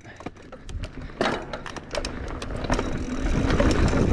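Mountain bike rolling fast down a dirt trail: tyres on dirt, the bike rattling and clicking over bumps, and wind on the camera microphone growing louder as speed builds from about a second in.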